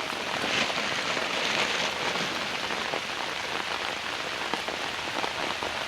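Hard rain falling steadily.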